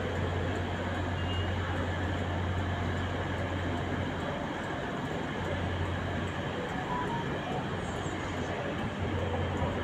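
Steady rumble of a train with a strong low hum. The hum drops out for a moment around the middle, then comes back.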